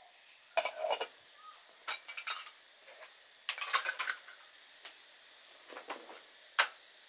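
Light metal clinks and taps of a small metal drip coffee filter and its parts being handled and set on a cup on a wooden table, in several short clusters, with one sharp click near the end.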